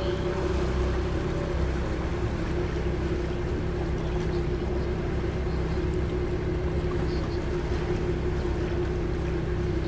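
Engine of a small open canal boat running steadily under way, a constant hum over a low rumble.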